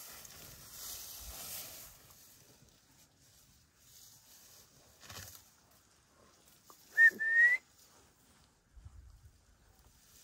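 A person's two-note whistle about seven seconds in: a short note, then a longer one rising in pitch. Before it there is soft rustling of grass as an African elephant grazes.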